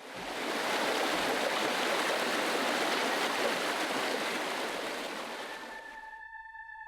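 Rushing white water, a steady, even hiss that fades in at the start and fades out about six seconds in. Held music tones come in just before it fades away.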